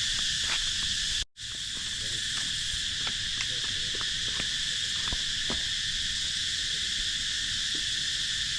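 A steady, high-pitched chorus of insects buzzing in the surrounding forest, with faint scattered ticks; the sound drops out completely for an instant about a second in.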